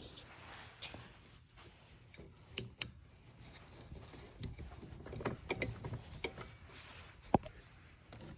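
Quiet handling noise of small plastic bushings and headlight-assembly parts being picked up and fitted: scattered light clicks and taps, with two sharp clicks close together about three seconds in and a short ringing ping near the end.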